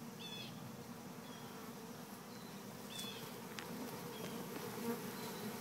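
Honey bees buzzing in a steady hum at the entrance of a hive box. They are returning field bees agitated to find their colony moved, and some are fanning at the entrance to spread the queen's pheromone. A few short high chirps sound over the hum, at the start and about three seconds in.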